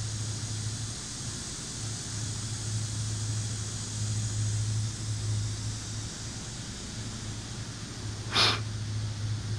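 A steady low hum over a faint hiss that drops out briefly twice. About eight seconds in comes one short, sharp breath close to the microphone.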